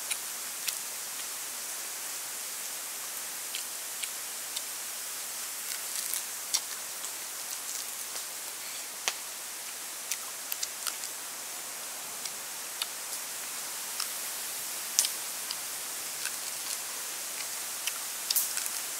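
Small, irregular crisp snaps and crackles as crispy deep-fried water snake is broken and picked apart by hand, over a steady high hiss.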